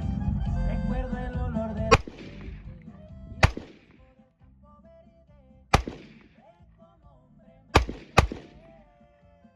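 Five gunshots from a firearm, spaced unevenly, the last two in quick succession, each with a short echo. Music plays throughout, loud for the first two seconds, then quieter.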